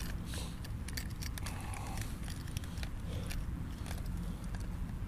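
Scattered small clicks and crackles over a low steady outdoor rumble.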